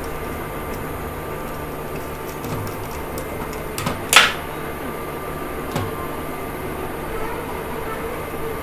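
Small clicks and handling noises from hands working a wooden switchboard's switch terminals, with one brief scrape about four seconds in. A steady hum runs underneath.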